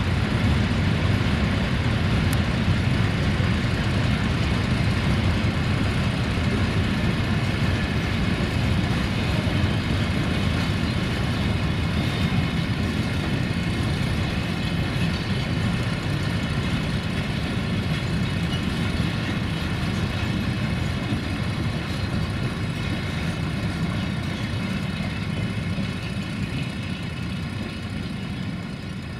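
Freight wagons rolling past on the rails, a steady low rumble with a faint thin ringing above it, easing off slowly near the end.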